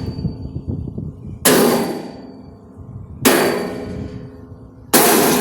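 Sledgehammer striking an old metal vending machine, three loud clanging blows about every second and a half, each leaving a brief high metallic ring.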